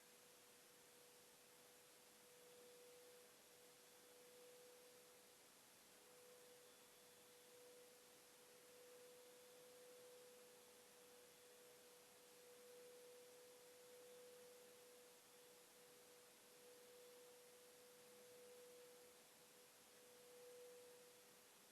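Near silence: the sound track is turned down, leaving only a faint, steady, mid-pitched pure tone over light hiss.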